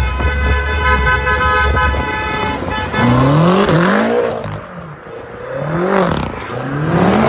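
A car horn sounds continuously for about three seconds over a low engine rumble. Then car engines rev up and down in repeated swells as the cars drift through a turn.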